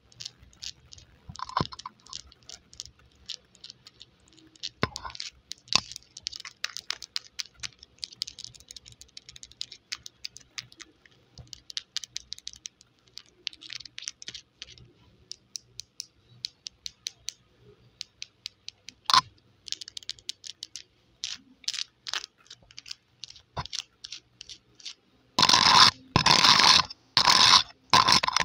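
Long polished fingernails tapping and scratching on a microphone's metal mesh grille, right on the mic: a run of light, quick clicks and short scrapes. Near the end the scratching turns much louder and denser, in several bursts with short breaks.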